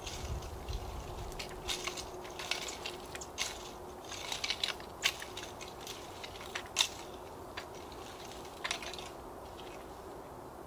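Garden rake scraping and chopping through loose forest dirt and debris in irregular strokes. The strokes trail off about nine seconds in.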